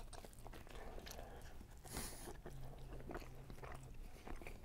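A person biting into a slice of homemade pan pizza and chewing it, faint, with many small crunches and clicks.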